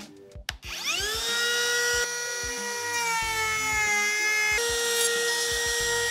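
Cordless compact router with a pattern bit switched on with a click about half a second in, whining up to full speed and running while routing a half lap. Its pitch sags a little in the middle under the load of the cut, then picks back up.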